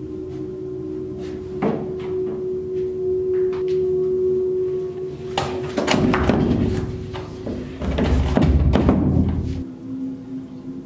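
Film score with a steady held drone, then from about five seconds in a run of loud thuds as a man pushes and bangs on a wooden door, stopping abruptly.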